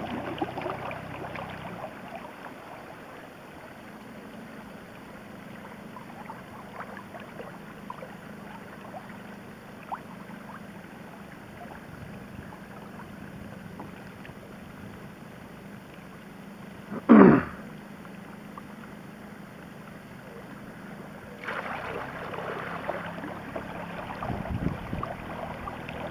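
Water rushing and splashing along the hull of a kayak being towed at speed, with the faint steady hum of the towing boat's outboard motor. One brief loud sweeping sound comes about 17 seconds in, and the water noise grows louder about 21 seconds in.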